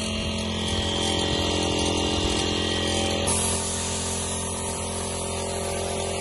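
A steady mechanical hum throughout; about three seconds in, a compressed-air paint spray gun starts hissing steadily as it sprays paint.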